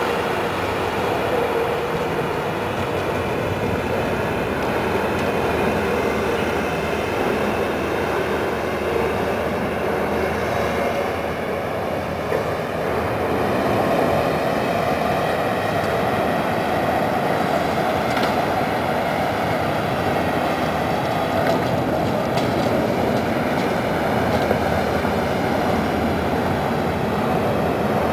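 Amphibious swamp-buggy excavator's diesel engine running steadily, a continuous mechanical rumble.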